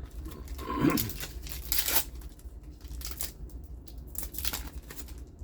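A trading-card booster pack wrapper being torn open and crinkled in the hands, in a run of ripping and rustling strokes with a pause in the middle.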